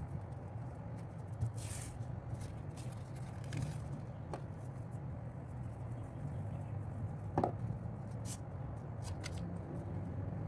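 Paper heart cut-outs being handled on a tabletop: brief rustles and scattered light taps and clicks as the pieces are moved and pressed down, the sharpest tap about seven seconds in, over a steady low hum.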